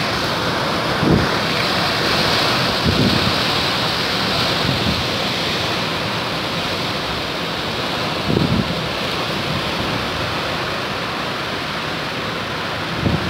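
Very severe cyclonic storm: strong wind and rain rushing steadily. Gusts buffet the microphone with a low thud several times, about 1, 3, 5 and 8 seconds in.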